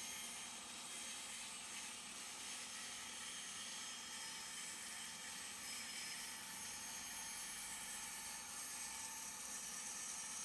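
Large bandsaw running and cutting along a wooden board: a steady, even machine noise with no breaks.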